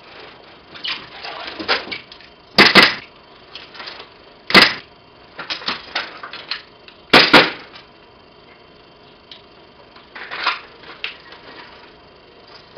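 Handling noise of an airsoft rifle slung on a nylon two-point sling as it is swung around the body: rustling of straps and clothing with sharp clicks and knocks, the loudest a quick double click about two and a half seconds in, a single one about four and a half seconds in, and another double about seven seconds in.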